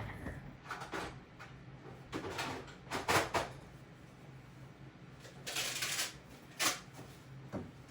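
Handling noises at a desk: a series of short scrapes and knocks, the loudest about three seconds in, with a steady low hum underneath.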